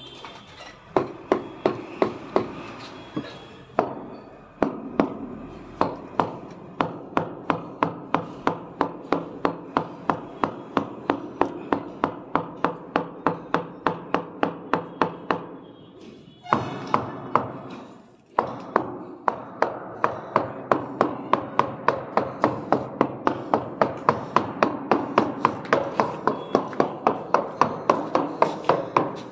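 The butt end of a wooden tool handle knocking on a granite slab in a quick, steady rhythm of about three knocks a second, tapping the slab down onto its wet mortar bed. The knocking breaks off briefly about sixteen seconds in, then goes on.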